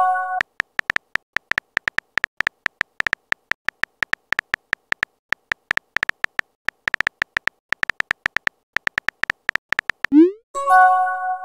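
Quick, irregular clicks of a texting app's on-screen keyboard as a message is typed letter by letter. Near the end a short rising swoop and then a chime of several tones sound as the message is sent.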